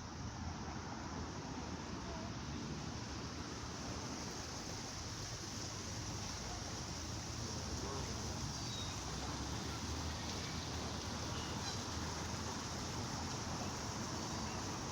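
Water fountain splashing steadily with light drizzle falling, an even, unbroken wash of water noise.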